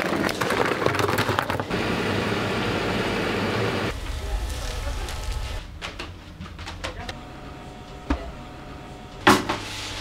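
Bakery work sounds in quick succession: ice chunks clattering into a plastic bowl at the start, then background voices and scattered kitchen clatter, with one sharp knock near the end.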